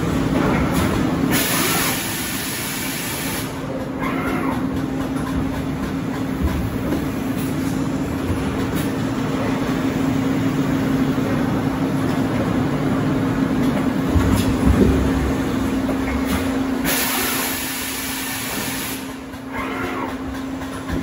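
In-mould labelling robot cell and moulding machine running: a steady mechanical hum under continuous machine noise, with two hisses of about two seconds each, one about a second in and one about four seconds before the end.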